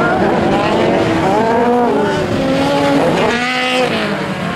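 Several Volkswagen Beetle-engined autocross buggies racing on a dirt track, their air-cooled flat-four engines revving hard over one another. The pitch climbs and drops repeatedly as they accelerate and shift, with one sharp rev rising and falling near the end.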